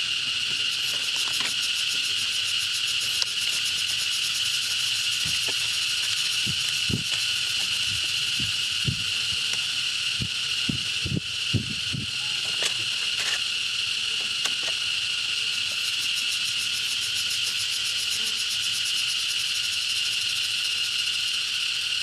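Steady chorus of insects, a continuous high-pitched buzzing drone. A few soft low bumps come around the middle.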